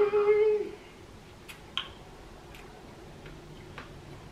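A woman eating frozen custard: a brief closed-mouth hum that ends within the first second, then a few soft, scattered mouth clicks and smacks as she eats.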